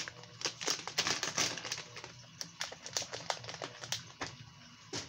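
Plastic soft-bait packaging crinkling as it is handled, in many short, irregular crackles.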